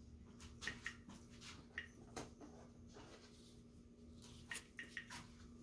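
Geiger counter giving a few faint, irregular clicks, sparse at background level now that the uranium ore has been moved away from the tube.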